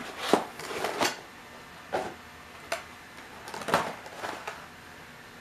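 Packaging being handled as a die-cast model airliner is taken out of its box: a handful of sharp clicks and knocks with some rustling between them.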